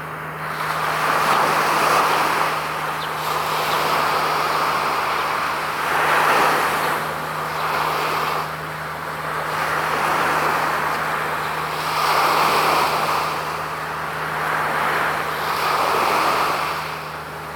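Road traffic passing one vehicle after another, each pass swelling and fading over a couple of seconds, over a steady low hum.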